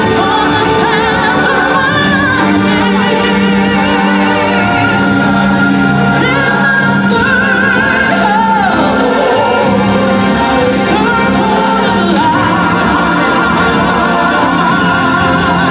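Live stage-show music: singers holding long wavering notes over a sustained accompaniment, sung into microphones and amplified through the theatre sound system.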